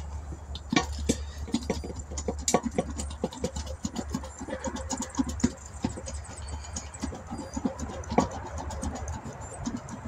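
Tire patch stitcher roller worked back and forth over a freshly set patch on a tire's inner liner, pressing it down to bond, in a quick run of clicking, scraping strokes about three or four a second. A steady low hum runs underneath and stops near the end.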